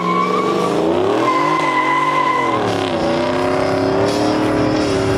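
A performance car's engine revving hard with its tires squealing. The engine pitch dips and climbs back, drops sharply about three seconds in, then climbs steadily, while the squeal runs through the first half.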